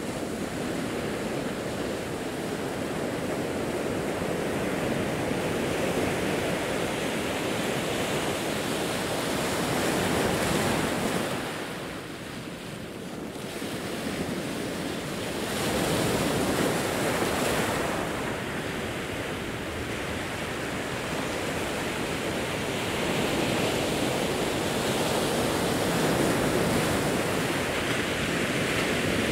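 Pacific Ocean waves breaking and washing over a rocky shore, swelling and easing in turn, with a lull about twelve seconds in before the next wave builds.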